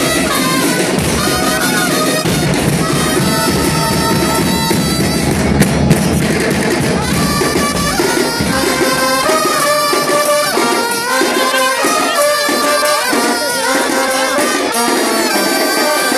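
A band playing: melodic lines over drums and percussion, with the heavy low end thinning out about halfway through.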